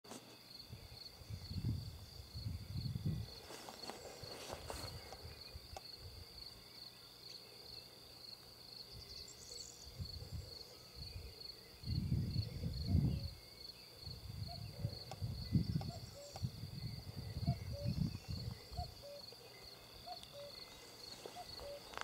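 A cricket chirping in a steady run of quick, evenly spaced high pulses, with the low, soft thuds of footsteps on grass coming and going in several bursts.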